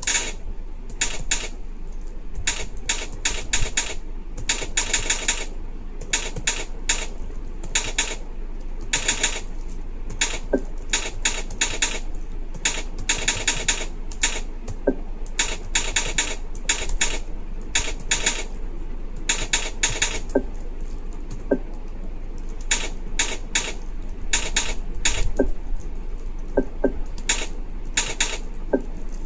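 Computer keyboard keys being typed on during a timed one-minute typing test: quick runs of clicks broken by short pauses, at a slow pace of about 24 words per minute.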